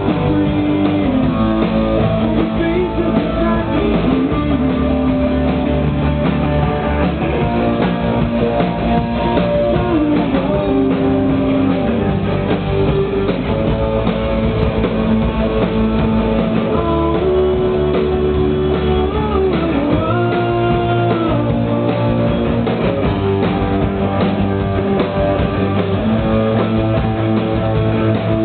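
Rock band playing live: electric guitars and a drum kit, loud and continuous, with a held melody line sliding from note to note.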